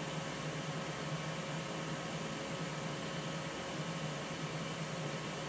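Steady hum and whir of a Ninja Foodi Smart Grill XL's fan running as the countertop grill heats up, with a constant low drone and a faint higher tone.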